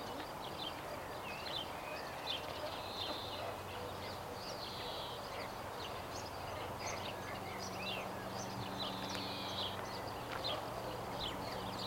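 Birds chirping outdoors: many short, scattered high chirps and little whistles, with a faint low steady hum underneath that is plainer in the second half.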